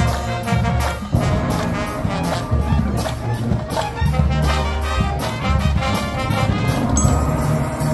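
Marching band playing live: brass section over drums and front-ensemble mallet percussion, with regular drum and cymbal strokes. About seven seconds in the strokes stop, leaving held brass chords.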